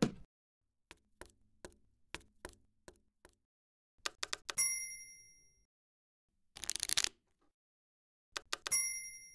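Typewriter sound effects: a run of light key clicks, then a bell ding that rings out for about a second. A short rasp follows near the middle, and near the end come more clicks and a second ding.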